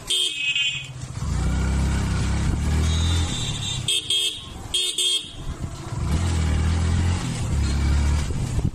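Motorcycle horn sounded in short beeps: one at the start, two quick ones about four and five seconds in, and another right at the end, over the bike's low engine and road rumble.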